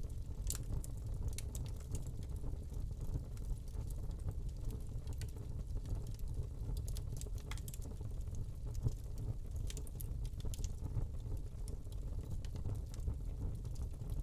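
Wood fire burning in a fireplace: a low steady rumble of flames with irregular crackles and pops from the burning log.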